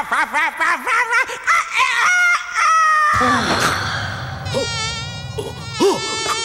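Cartoon sound effects: a quickly wavering, warbling wail, then held whining tones, and about four and a half seconds in a high, rapidly wavering buzz like a mosquito's from an insect-like creature.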